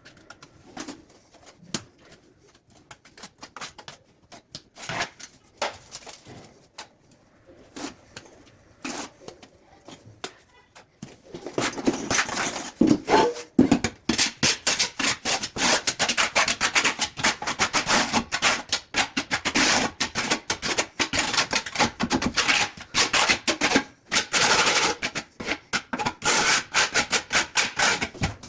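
Hand tool working on ceramic tile: scattered light taps and clicks, then about twelve seconds in a continuous, rapid scraping that runs on to the end.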